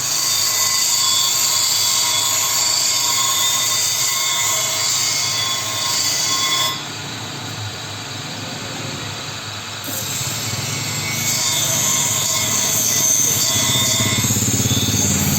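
Grinder grinding steel spring stock, a loud, steady, high-pitched squealing hiss. The highest part of the sound cuts out suddenly about seven seconds in and returns about three seconds later.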